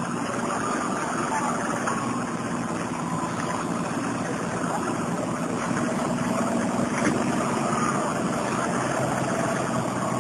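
Toyota Land Cruiser 40-series engine running steadily at low revs as the truck crawls up a sandy slope.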